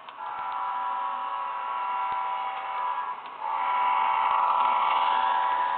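HO-scale Santa Fe model locomotive running on its track, its electric motor and gears giving a steady whine that starts abruptly and grows louder about three and a half seconds in as the engine passes close by.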